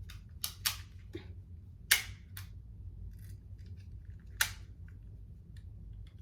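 Sharp plastic clicks from a toy hair-star applicator being pressed to set stars into hair: a few irregular clicks in the first two and a half seconds, the loudest about two seconds in, and another loud one at about four and a half seconds.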